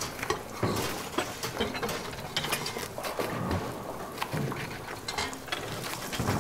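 Irregular clatter and clinks of dishes and metal utensils in a working commercial kitchen, a string of short sharp knocks over a steady background hum.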